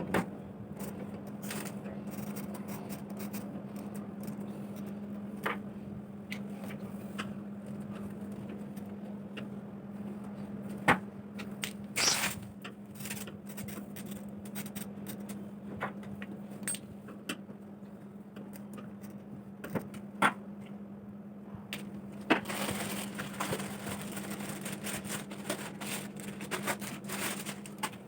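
Scattered scrapes, cracks and knocks from packaging and parts being handled, busier and crackly near the end, over a steady low hum.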